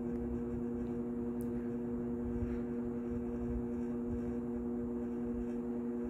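1960s Arvin model 7414 box fan running on high: a steady electric motor hum over the rush of air from the blades. Its small motor is still slowly coming up to speed because it needs oiling.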